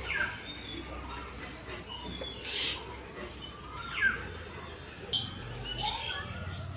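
Insects trilling steadily, with birds giving short chirps and calls every second or so.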